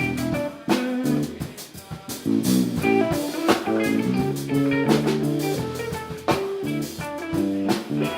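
Live band playing an instrumental passage: guitar lines over a drum kit keeping a steady beat.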